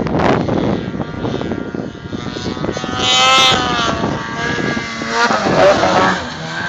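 Ski-Doo Blizzard snowmobile's 600 H.O. SDI two-stroke twin being revved. The engine pitch climbs to a peak about three seconds in and falls back, then blips up again near the end.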